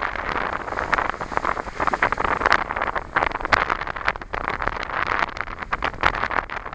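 Wind gusting across the microphone, with crackles and uneven surges, over sea water washing around the pier.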